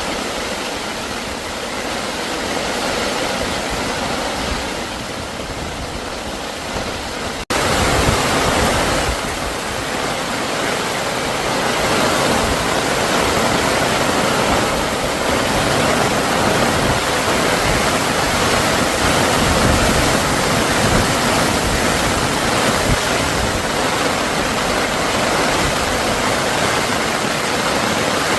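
Water rushing in a mountain valley stream, a steady full noise. About seven seconds in it cuts abruptly to a louder, deeper rush.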